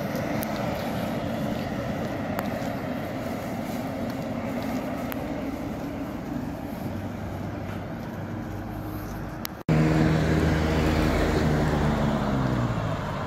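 Road traffic on a busy highway: a steady hum of passing vehicles. After a sudden break about ten seconds in, a louder engine passes close by, and its pitch drops as it goes past.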